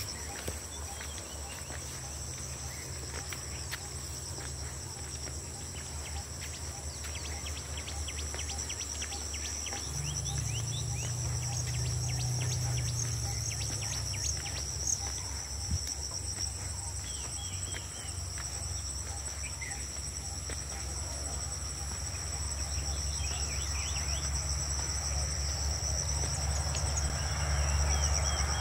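Steady high-pitched insect buzzing with scattered short bird chirps, over a low steady hum that grows louder about ten seconds in and again near the end.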